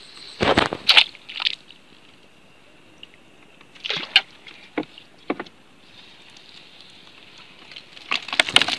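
A multi-pronged fishing spear splashing into shallow water several times, with water sloshing and dripping as it is lifted out. A steady faint high hiss runs underneath.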